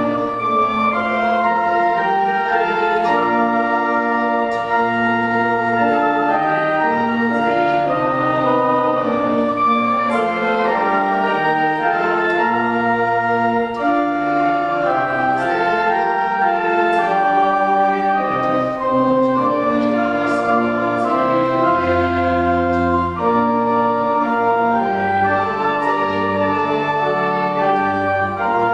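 Church organ playing a hymn in sustained full chords over a moving bass line.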